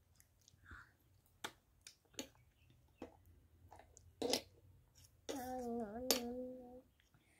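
Small sharp clicks and smacks of a toddler eating from a steel bowl with a metal spoon, a few scattered clinks. Near the end a voice hums a long held "mmm" for about a second and a half.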